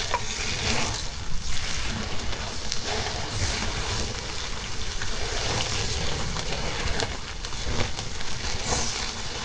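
Beef and vegetable skewers sizzling over the open flames of a grill: a steady rush of fire and spitting fat, with a few sharp crackles.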